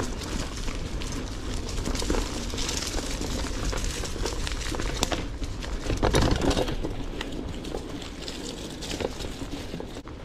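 Rigid retro mountain bike ridden over a dirt trail: knobbly tyres crunching over leaves, twigs and small rocks, with a continual rattle and clatter from the bike over bumps and a heavier jolt about six seconds in.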